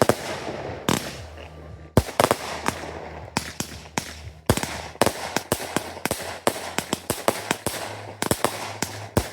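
Fireworks going off: a quick, irregular string of sharp bangs, several a second at times, with crackling between them.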